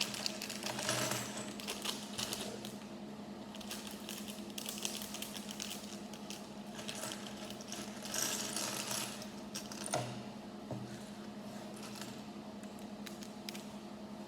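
Small plastic Lego pieces clicking and clattering as they are handled and sorted, with short stretches of plastic-bag rustling about a second in and again around eight seconds in. A steady low hum runs underneath.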